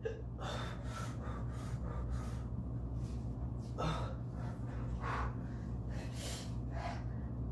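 A man gasping and breathing hard through his mouth in short, irregular breaths, a second or so apart, as his mouth burns from a very hot sauce.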